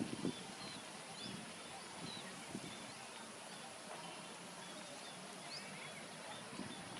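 Faint, scattered short high chirps of small birds, several each second, over a steady high hiss, with a couple of soft low thumps at the very start.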